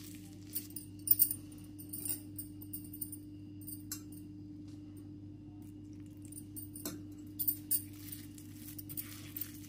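A hand kneading wet spice paste against a stone mortar bowl: scattered faint clicks and clinks, in two spells with a quieter stretch in the middle, over a steady low hum.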